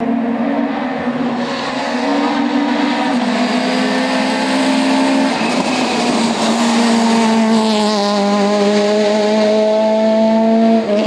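Rally car engine at speed on a tarmac stage. It holds steady revs, dips about halfway through as the driver lifts for a bend, then climbs steadily as the car accelerates away.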